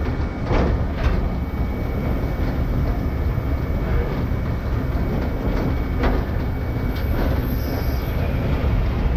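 Train running along the rails: a steady low rumble of wheels on track, with a few sharp clicks about half a second and a second in, and again near six and seven seconds.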